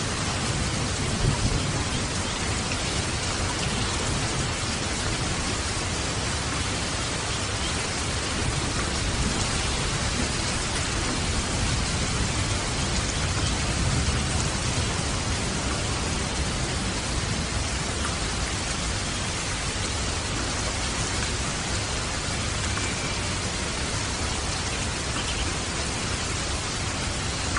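Waterfall rushing steadily, with light rain falling: a continuous, even hiss of water with no breaks.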